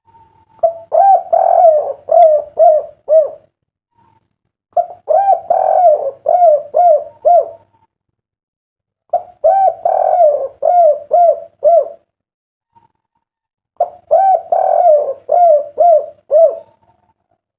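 Derkuku (spotted dove) cooing: four phrases, each a run of six or seven low, rounded coos lasting about three seconds, with a pause of about a second between phrases. It is a 'kuk 3' singer, the call type prized by Indonesian dove keepers.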